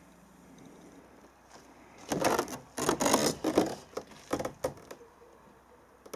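Footsteps crunching on hard-frozen snow at about −43 °C: six or so loud crunches from about two seconds in, stopping at about five seconds.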